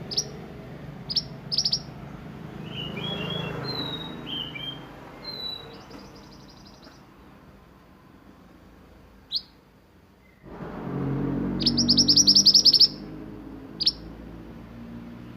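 Male mantenan singing: scattered short, sharp high notes and chirps, then about three-quarters of the way through a loud, fast rattling trill lasting over a second, the "roll" song prized for tutoring other songbirds.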